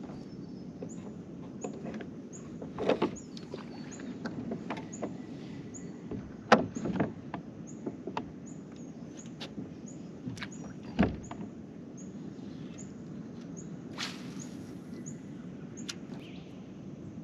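Scattered knocks and splashy thuds from handling at the bow of a small fishing boat, loudest about three, six and a half and eleven seconds in, over a steady low hum.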